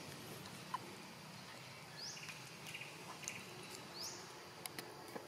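Forest ambience with a short, high, rising chirp repeating about every two seconds and some buzzier chirps in the middle. A few sharp clicks come near the end.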